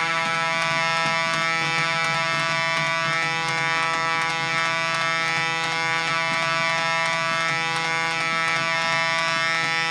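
A steady drone from the ritual music: one held tone with many overtones, unchanging and without melody.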